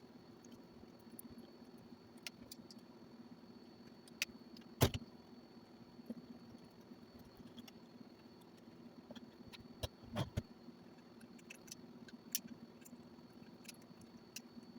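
Scattered light clicks and knocks of small objects being handled, with one sharp knock about five seconds in and a few more around ten seconds, over a steady low hum.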